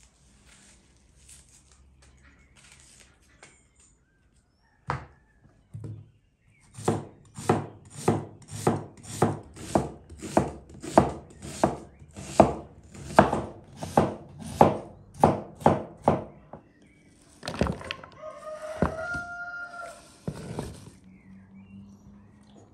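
Knife chopping on a cutting board: a couple of single cuts, then a steady run of about two strokes a second. Near the end a rooster crows briefly.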